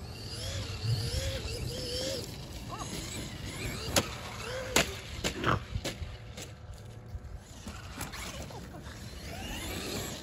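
Traxxas Maxx electric RC monster truck driving over grass, its motor whining and rising and falling in pitch with the throttle. A few sharp knocks come around the middle.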